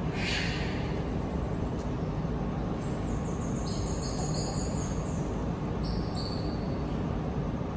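Thin, very high-pitched trills and chirps of pygmy marmosets: a run of them from about three seconds in and a shorter one a little after six seconds. Under them runs a steady low rushing noise, with a short hiss at the very start.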